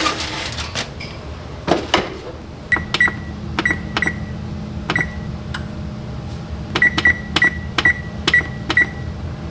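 Oven being switched on and set: a few knocks, then a steady low hum starts up, and about a dozen short beeps come as the control-panel buttons are pressed.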